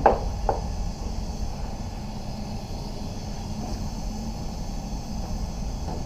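Steady low rumble of a spray booth's ventilation running, with two short knocks in the first half second.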